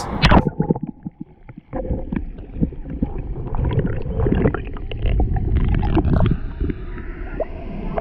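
A splash as a camera goes into a waterfall's plunge pool, then muffled underwater sound: low rumbling water with scattered knocks and clicks.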